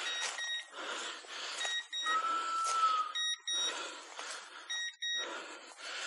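A hunting dog's beeper collar beeping: short, high electronic beeps about once a second, with one longer steady tone near the middle. Footsteps crunch through dry leaves and brush underneath.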